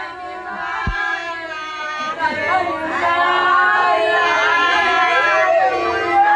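Several women wailing and crying in lament over someone who has just died, with overlapping, wavering drawn-out voices that grow louder about two seconds in. A single low thump comes about a second in.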